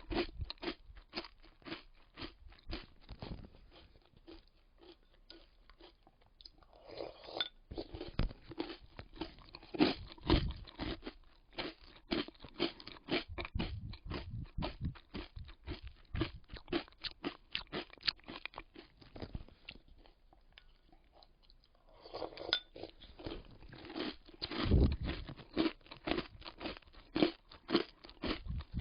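Close-up crunching and chewing of crunchy chocolate-almond granola cereal: dense, irregular crisp crunches that die down into two quieter lulls of a few seconds before starting up again.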